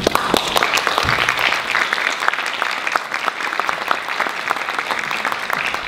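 Audience applauding, a dense, even clapping of many hands.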